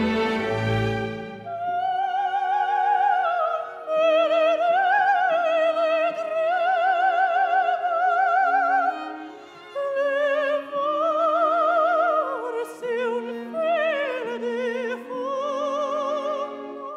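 Operatic soprano singing a slow, sustained line with wide vibrato over held orchestral notes. Low orchestral chords give way to the voice about a second and a half in.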